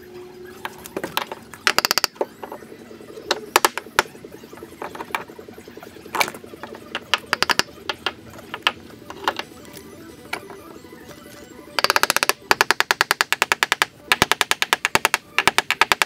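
Hammer striking a hardwood noggin to seat it between floor timbers: scattered single knocks at first, then fast runs of light taps in the last few seconds.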